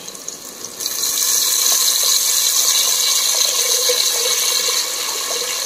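Tamarind water being poured into hot oil with frying shallots in a clay pot: a steady sizzling hiss and pouring that starts about a second in.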